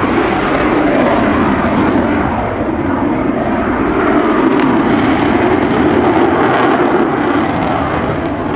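Lockheed Martin F-22 Raptor's twin Pratt & Whitney F119 turbofans in afterburner during a high-speed demonstration pass: loud, steady jet noise with a faint crackle.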